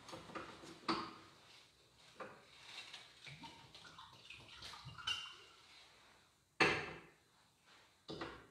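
Scattered clinks and knocks of metal church vessels being handled at the tabernacle, the loudest a sharp clack about six and a half seconds in, with another shortly before the end.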